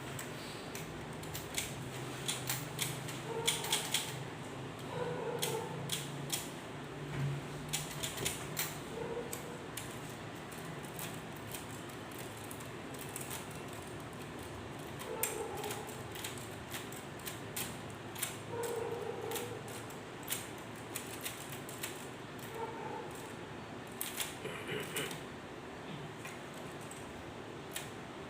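Irregular clicks and clacks from the mechanism of a K Clover 815 manual typewriter, in scattered clusters.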